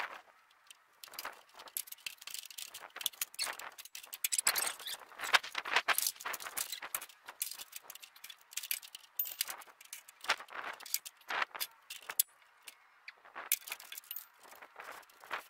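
Metal hand tools clinking and clattering in irregular clicks and clanks as a wrench and socket are worked onto a mower's PTO clutch bolt, busiest about four to six seconds in.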